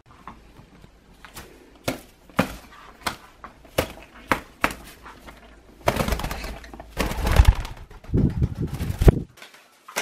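Wings of a laughing dove and a green-cheeked conure flapping in a scuffle, a dense burst of wing beats about six seconds in that lasts some three seconds and stops suddenly. Before it comes a run of short, sharp sounds roughly every half second.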